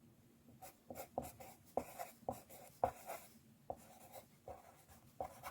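A series of about a dozen irregular light taps over a faint steady hum.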